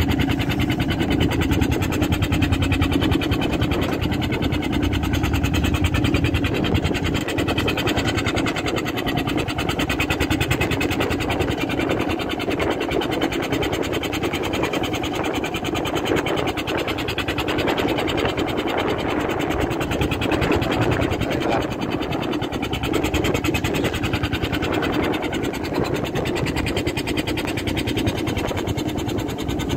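An engine on a fishing boat running steadily, a constant unbroken drone.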